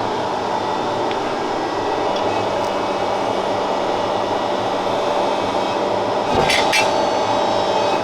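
A workshop machine running steadily with a constant hum while metal is worked, with a brief harsher scraping sound about six and a half seconds in.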